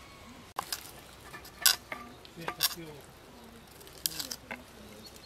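Large kitchen knife cutting the green husk off a fresh walnut over a wooden board: a string of short, sharp knife clicks and scrapes.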